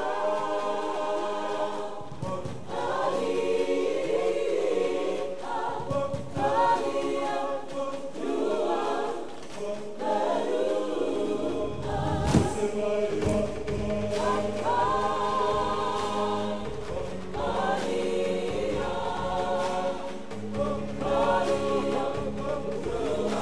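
A group of voices singing a Fijian meke dance song together, rising and falling in phrases. One sharp thump cuts in about twelve seconds in.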